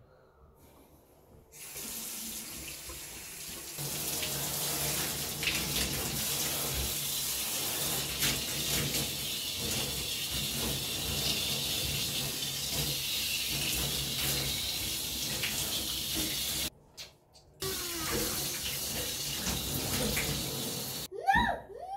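Handheld shower spraying water over a child and onto tiles, a steady hiss that starts about a second and a half in, cuts off briefly near the end and comes back. In the last second a few short high pitched cries are heard, likely the child's voice.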